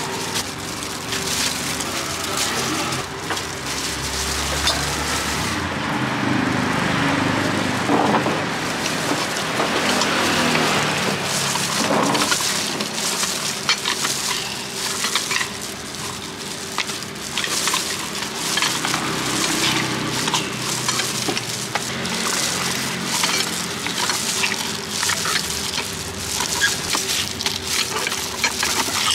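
Steady crackling noise with many small clicks and knocks as peeled oranges are handled and halved into a plastic bowl and then squeezed in a hand-lever citrus press, the juice splashing into a plastic strainer.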